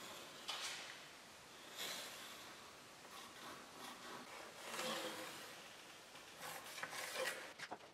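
Graphite pencil scratching on wood as lines are traced along the edge of a steel plate and a wooden batten: several short, faint scratching strokes with light handling of the wood.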